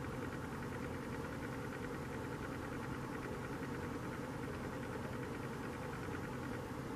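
Steady low mechanical hum with a layer of hiss, unchanging throughout.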